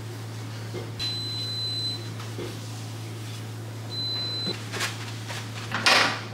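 Induction hob's touch controls beeping: a steady high beep about a second long, then a shorter one a few seconds later, over a steady low hum. Brief swishes of a cloth wiping the glass top follow, the loudest near the end.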